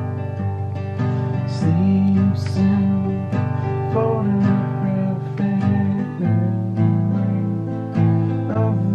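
Music with acoustic guitar strumming.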